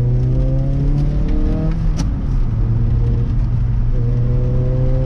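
Toyota MR2 AW11's 4A-GE four-cylinder engine heard from inside the cabin, pulling under acceleration with its pitch climbing. Just before two seconds in the pitch drops suddenly with one sharp click, then climbs again.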